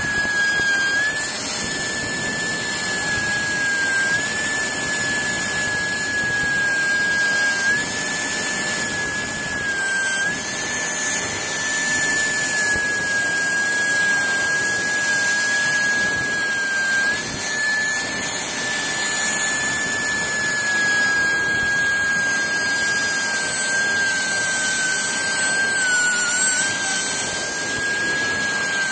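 High-speed turbine handpiece spinning a diamond burr as it drills into a topaz: a steady high whine with a hiss, its pitch dipping slightly several times.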